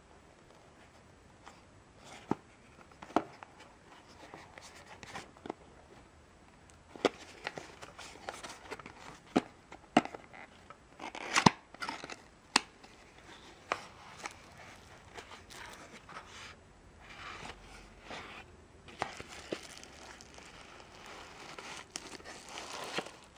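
A small cardboard box being handled and opened, with scattered clicks and snaps of its flaps and card, then plastic wrapping crinkling as the contents are pulled out near the end.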